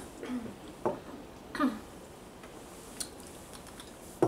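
People sipping soda from drinking glasses: a few light clicks and knocks of glass, with a couple of short hummed murmurs.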